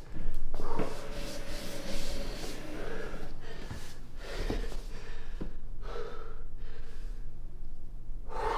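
A man breathing hard and gasping in distress, opening with a loud sharp gasp, followed by repeated heavy breaths over a steady low hum.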